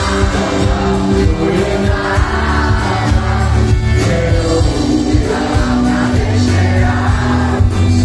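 Live pop band performing: male vocals over acoustic guitar, electric guitar, bass and drums.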